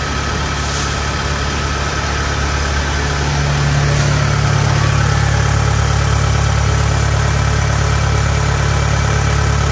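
Kubota DC70H combine harvester's diesel engine idling steadily, growing louder and closer about three and a half seconds in.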